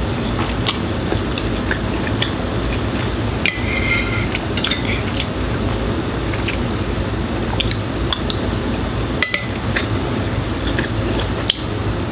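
Eating at the table: a fork and spoon clink and scrape on ceramic plates, with mouth sounds of slurping and chewing noodles and rice, over the steady hum of a loud air conditioner.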